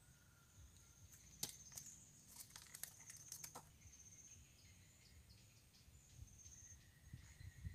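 Mostly near silence with a faint steady high insect whine; between about one and a half and three and a half seconds in, a quick run of light clicks and a swish as a baited line is swung out from a simple fishing pole.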